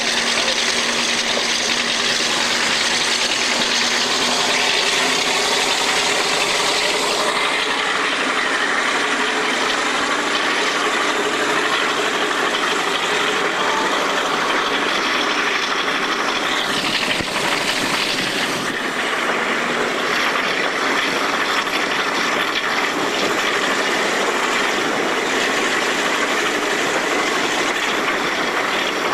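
Class 35 Hymek diesel-hydraulic locomotive's Maybach engine working under power as it hauls the train, heard from an open coach window along with a steady rush of wind and wheel noise. A brief louder rush comes about 17 seconds in.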